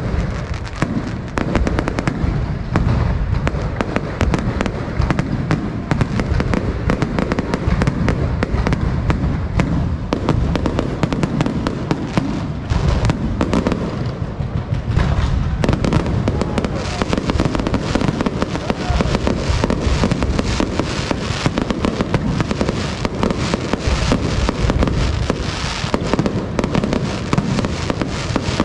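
Aerial fireworks going off without a pause: a dense run of bangs and crackling pops, thickest in the second half.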